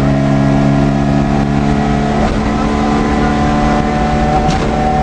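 Škoda 100's rear-mounted four-cylinder engine running at steady high revs, heard from inside the rally car's cabin. The engine note breaks briefly about two seconds in, and a single sharp knock comes near the end.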